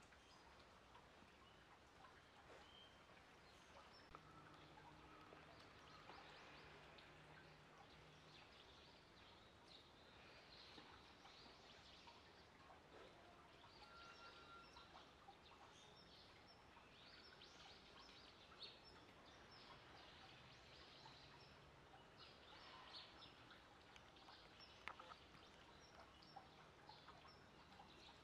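Near silence: faint outdoor ambience with scattered, distant bird chirps, and a faint low hum for a few seconds.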